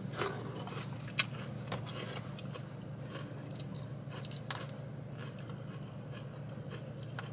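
Close-up eating of a grilled chicken salad: chewing and crunching, with short scattered clicks and scrapes of a plastic fork in a plastic takeout container, the sharpest click about a second in, over a steady low hum.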